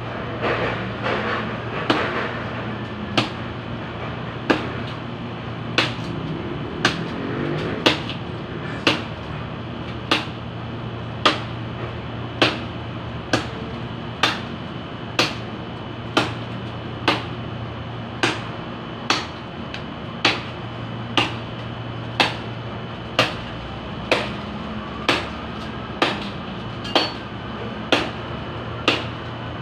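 Bolo (itak) chopping into a tree branch: single sharp strikes at a steady pace of about one a second, starting about two seconds in.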